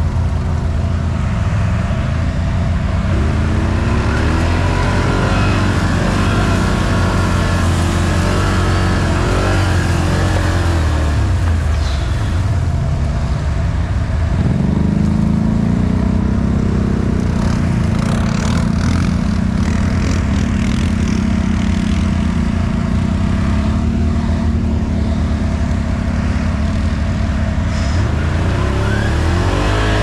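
Can-Am Outlander 1000 XMR ATV's V-twin engine running and revving, its pitch rising and falling as the throttle is worked. About halfway through it settles into a longer, steadier higher run.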